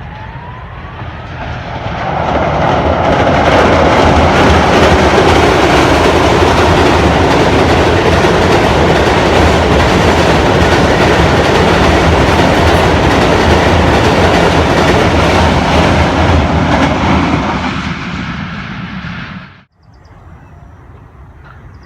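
Passenger train crossing a railway bridge: a loud, steady rumble and rattle of coaches running over the span, with rhythmic clickety-clack of the wheels. It builds over the first two seconds, fades near the end and then cuts off sharply.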